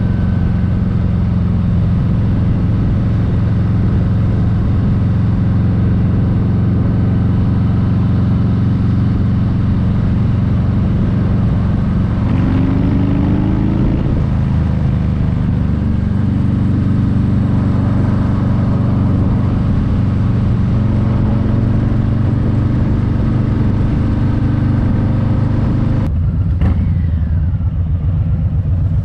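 Harley-Davidson Street Bob 114's Milwaukee-Eight V-twin running through Shark Road slip-on mufflers, a steady deep exhaust note. The pitch rises briefly about twelve seconds in and the note changes abruptly near the end.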